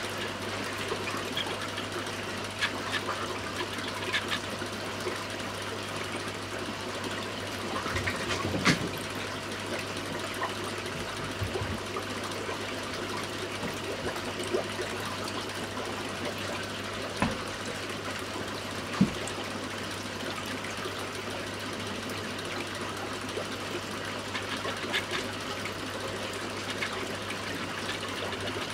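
Aquarium filter pump running steadily, with an even hum and a wash of moving water, and a few faint clicks.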